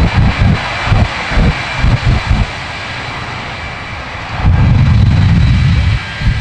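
The Shockwave jet truck's three jet engines run with a steady hiss under the low, rumbling booms of pyrotechnic fireballs. A quick series of booms comes in the first couple of seconds, then a loud rumbling blast lasts from about four and a half to six seconds in.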